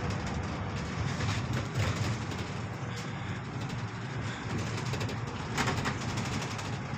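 Steady running noise of a moving double-decker bus heard from its upper deck: engine hum and road noise, with a short louder burst of noise about five and a half seconds in.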